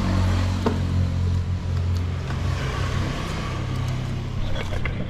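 A motor vehicle engine runs steadily and is heard close by. It is loudest at first and eases off toward the end.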